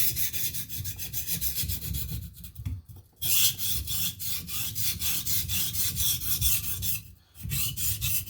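Steel knife edge scraping over a coarse King 300 whetstone in quick, even back-and-forth strokes, with two short pauses.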